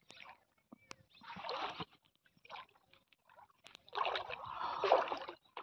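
Footsteps wading through shallow floodwater: irregular sloshing splashes, a short one about a second in and a longer, louder one about four seconds in.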